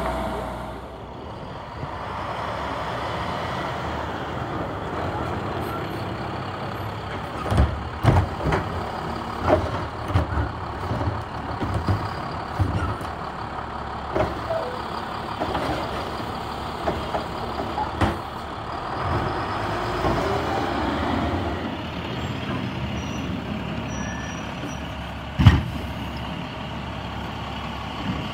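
Automated side-loader garbage truck running, its hydraulic arm gripping, lifting and tipping wheeled waste carts. A steady engine-and-pump sound runs under repeated clunks and knocks, with one sharp bang about 25 seconds in.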